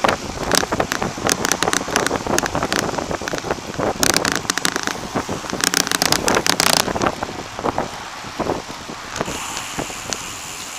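Wind buffeting the microphone of a handlebar-mounted camera on a moving bicycle, with frequent crackling clicks. It settles into a steadier, quieter rush over the last couple of seconds.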